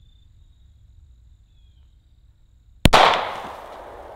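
A single 9mm pistol shot from a Sig P365 with a 3.1-inch barrel, about three seconds in, sharp and loud, followed by a long decaying echo.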